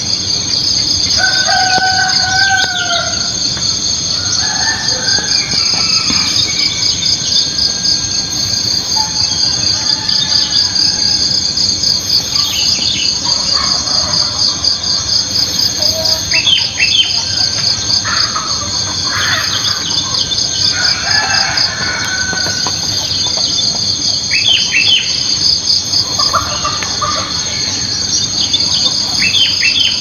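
A steady, rapidly pulsing high-pitched insect chorus, with a rooster crowing a few times and small birds giving short chirps.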